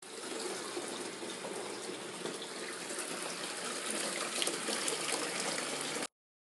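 Water pouring down a tiered decorative fountain, splashing steadily from bowl to bowl; it cuts off suddenly near the end.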